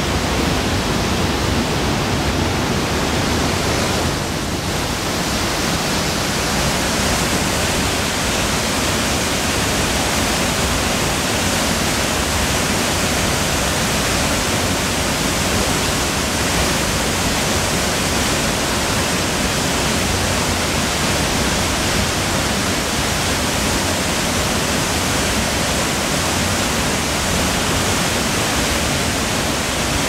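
Kozjak waterfall's steady rushing roar as the water plunges into its pool, dipping slightly about four seconds in.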